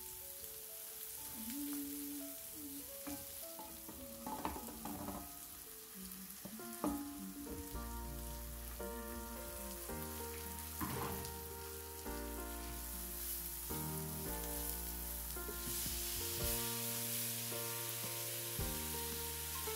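Diced onion and mince sizzling as they fry in an enamelled cast-iron skillet and are stirred with a spatula, with a few short scrapes. The sizzle grows louder near the end. Background music plays throughout, with a bass line entering about eight seconds in.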